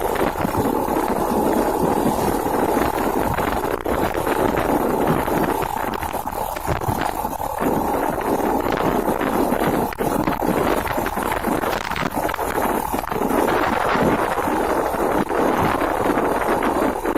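Small 110cc motorcycle engine running on the move, mixed with a steady rush of wind on the microphone.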